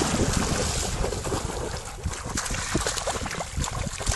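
Water trickling and sloshing, with irregular low splashes throughout.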